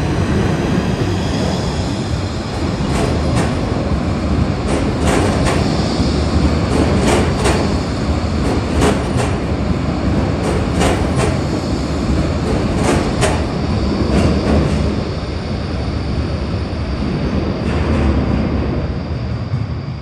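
Badner Bahn light-rail train passing through an underground tram station, its running gear rumbling steadily. A series of sharp clicks comes as the wheels cross rail joints and points in the middle of the pass-by. The sound eases off near the end as the train moves away.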